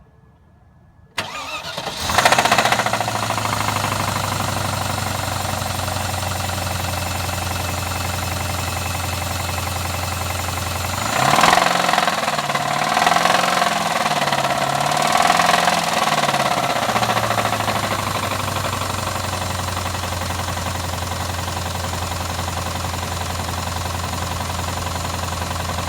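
Land Rover Discovery's Rover V8 engine cranked by the starter and catching about two seconds in, then idling, revved up a few times in the middle and settling back to idle. It runs with a knock at every speed, which the owner suspects is a lost bearing rather than a slipped cylinder sleeve.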